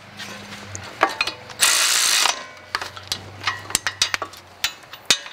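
Power ratchet spinning caliper bracket bolts in: one short burst about two seconds in, with scattered ratchet clicks around it.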